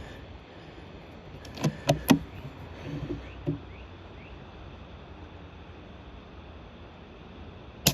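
A .25 calibre air rifle: three sharp metallic clicks about two seconds in as it is readied, then a single sharp crack of the shot near the end.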